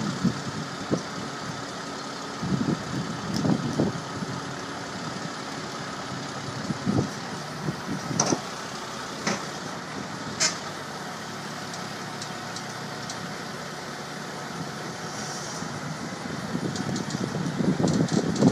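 Heavy-duty tow truck's diesel engine running steadily while it pulls a jackknifed semi-trailer, with uneven low rumbles and a few sharp clicks about halfway through.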